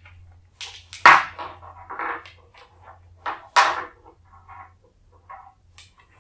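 Wooden beads being slid off a cord and set down on a wooden board: a series of short wooden clacks and knocks, the loudest about a second in and another at about three and a half seconds.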